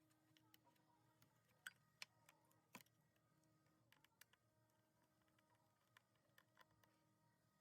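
Near silence with faint, scattered clicks and ticks, a few slightly louder ones in the first three seconds.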